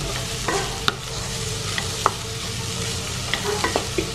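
Wooden spatula stirring sliced onion and crushed coconut frying in oil in a kadai: a steady sizzle with several light clicks of the spatula against the pan.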